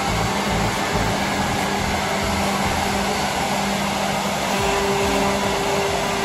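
Multi-spindle CNC milling and drilling machine running as it machines wooden chair and table legs: a loud, steady whirring noise with a constant hum. A higher steady tone joins about four and a half seconds in.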